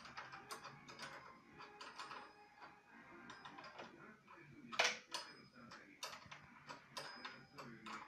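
Small metal clicks, taps and scrapes of a hand wrench working the adjusting screw and bracket of a spring-loaded vacuum relief valve, with a sharper click about five seconds in.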